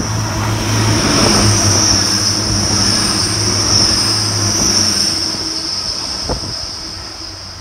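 Grand Central Class 180 diesel multiple unit passing through at speed: a steady low engine hum with wheel-on-rail noise, fading as it draws away after about five seconds.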